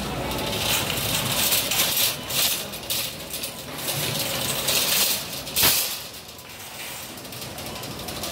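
Rustling and rattling handling noise from a phone carried while walking, in uneven surges, with one sharp click about five and a half seconds in.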